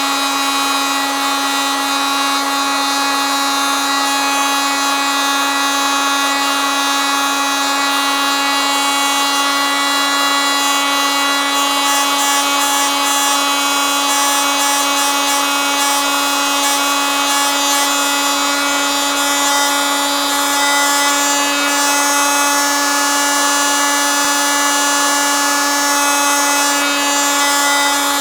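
Oscillating multitool running steadily at constant speed, a loud buzzing drone that holds one pitch throughout.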